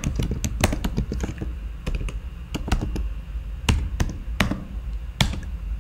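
Typing on a computer keyboard: a run of quick, irregularly spaced keystrokes, thinning out toward the end.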